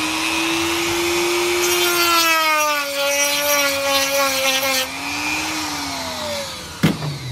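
Handheld rotary tool running with a sanding drum, grinding out the bearing hole of a 3D-printed plastic fidget spinner to enlarge it. The whine picks up a harsher grinding sound and drops slightly in pitch while the drum cuts, from about two seconds in to about five; near the end the whine sinks in pitch as the tool runs down, and a single knock follows.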